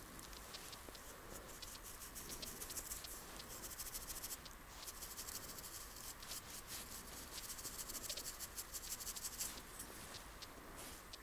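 Snow crunching and crackling in quick, dense bursts, busiest around two to four seconds in and again from about six to nine and a half seconds.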